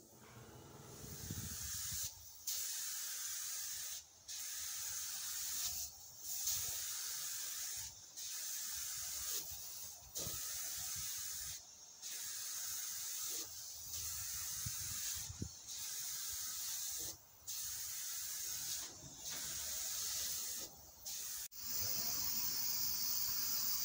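Paint spray gun hissing in passes of about two seconds, each broken by a short pause as the trigger is let go, while laying on colour coats; wind rumbles on the microphone. Near the end the spray runs on steadily without breaks.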